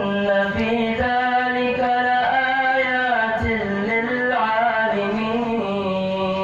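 A single voice reciting the Qur'an in the melodic tilawah style, holding long ornamented notes that bend and turn in pitch, with only brief breaks between phrases.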